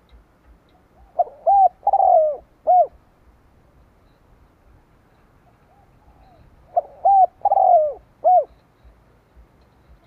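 Spotted dove cooing: two phrases about five and a half seconds apart, each of about four arched notes with a longer, falling note near the end.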